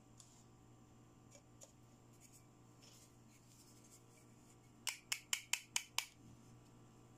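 Hard plastic toy teeth clicking in the hands: a quick run of six sharp taps in about a second, near the end, after a few faint handling ticks.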